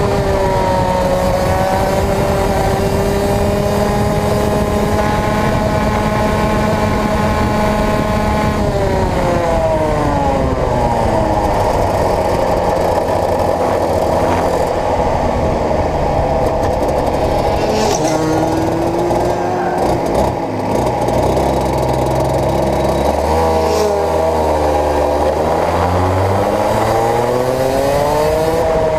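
Racing kart's engine heard onboard at speed, running high and steady, then dropping in pitch about nine seconds in as the kart slows. Near the end the revs fall again and then climb as it accelerates.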